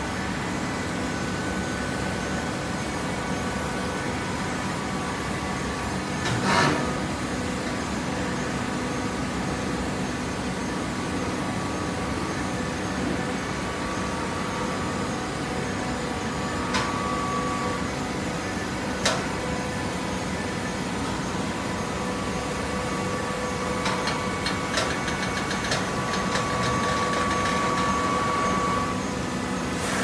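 Horizontal baler machinery running with a steady hum made up of several tones. There is a loud knock about six seconds in and sharp clicks later on. Near the end comes a stretch of rattling clicks with a steady whine that cuts off shortly before the end.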